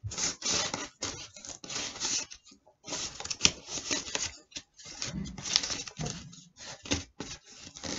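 Corrugated cardboard being folded and creased by hand: a run of irregular scraping and crinkling noises.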